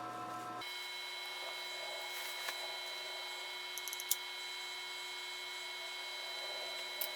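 Power Mac G4 MDD running as it boots, a steady fan hum with a few thin constant whining tones. A few faint clicks sound now and then.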